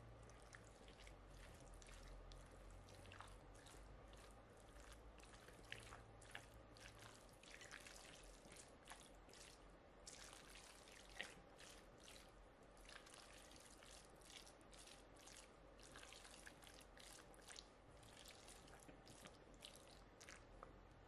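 Faint wet squelching with scattered light clicks of a utensil, as a moist food mixture is stirred or worked in a bowl.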